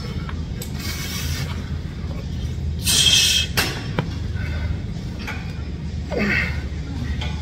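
A lifter's sharp, forceful exhalations, about one every two to three seconds, pressing heavy dumbbells overhead on a seated shoulder press, with the loudest near the middle. A single sharp click comes about four seconds in, over a steady low hum of the gym.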